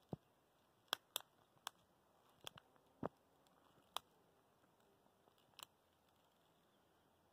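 About ten short, sharp ticks at irregular spacing over near silence, most of them in the first six seconds.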